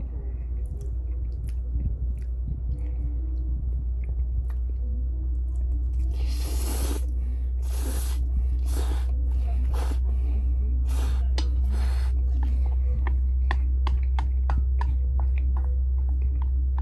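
A person slurping and chewing noodles close to the microphone: several loud slurps from about six to twelve seconds in, then wet chewing with quick clicks of chopsticks against a metal bowl, over a steady low hum.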